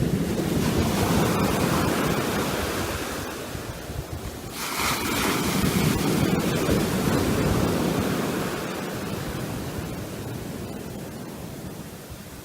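Gulf of Mexico surf breaking and washing up the beach, the sea churned up after a rainstorm. It swells loudest right at the start and again about five seconds in, then eases off.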